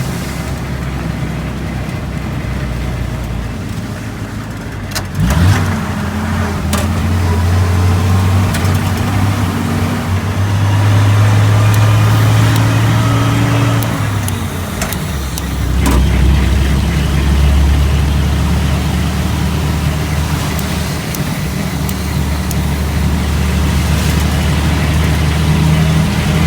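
1942 Dodge WC-52's flathead straight-six engine running while the truck is driven. About five seconds in there is a sharp knock and the note changes; the engine then climbs slowly in pitch, drops off at around fourteen to sixteen seconds, and runs on at a steady note.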